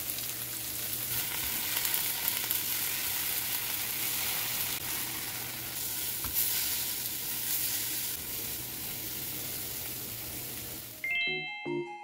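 Tofu cubes sizzling steadily as they pan-fry in hot oil in a nonstick pan. About eleven seconds in the sizzle stops and light background music with short mallet-like notes begins.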